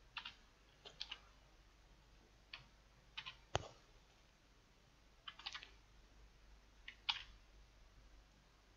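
Scattered clicks of a computer keyboard and mouse, single and small groups of clicks a second or two apart, the sharpest one about three and a half seconds in.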